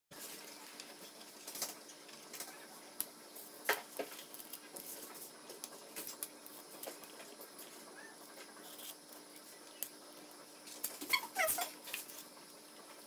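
Quiet scraping, rustling and light clicks of a plastic pastry comb drawn along soft dough logs on a parchment-lined baking tray. Near the end come a few short falling squeaks.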